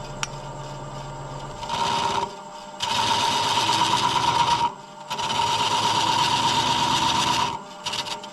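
A part spinning in a lathe chuck having a little material taken off in three short passes, each a rasping cut over the machine's steady whine.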